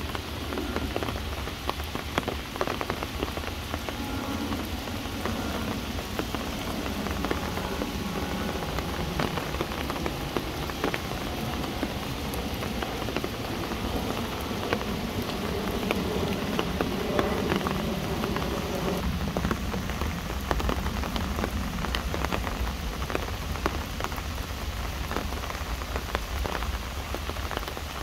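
Steady rain falling on tree leaves and wet ground under a woodland canopy: a constant hiss with many separate close drops heard as sharp ticks, over a low steady rumble.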